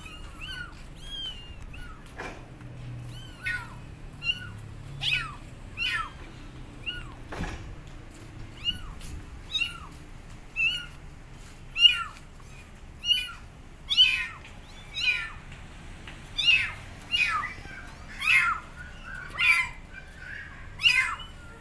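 Kittens meowing over and over, short high calls about one a second, getting louder in the second half: young kittens calling for their mother cat.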